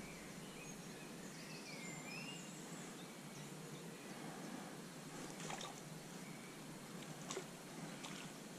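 Quiet riverbank ambience: a steady faint hiss of outdoor background noise, with small birds chirping in the first couple of seconds and a few short soft clicks later on.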